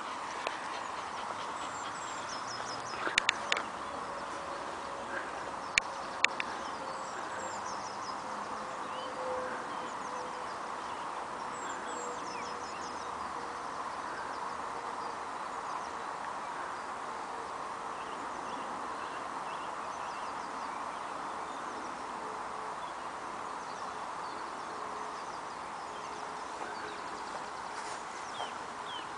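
Outdoor ambience: birds chirping faintly over a steady background hum, with a few sharp clicks about three to six seconds in.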